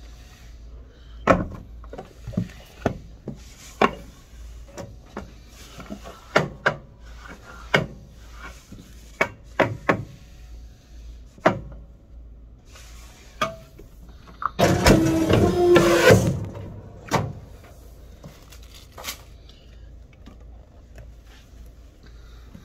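Paper stacks knocking and tapping on the steel table of a programmable guillotine paper cutter, a dozen or so sharp knocks, then about 15 seconds in a loud cut cycle of nearly two seconds as the clamp and blade come down and return, with a steady tone through it. A low steady hum runs underneath.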